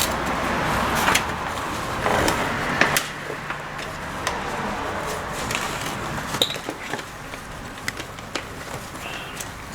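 Tool work on the bolts of a Ford Mustang oil pan: a steady noisy whir that stops about three seconds in, then scattered sharp metallic clicks and taps of tools and bolts.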